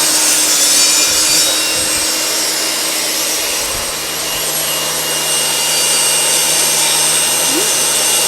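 Craftsman table saw running steadily with its blade cutting through wood.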